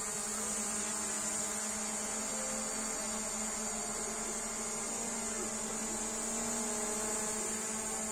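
SJRC F11 Pro quadcopter's brushless motors and propellers buzzing steadily as it hovers: an even hum made of several held tones, with a high hiss over it.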